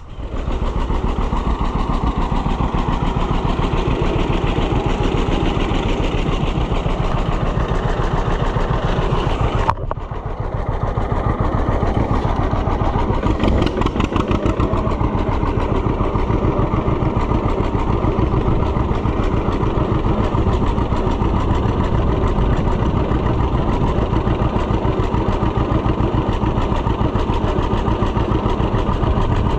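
Farm tractor engine running steadily with an even low pulse, with a brief drop about ten seconds in before it picks up again.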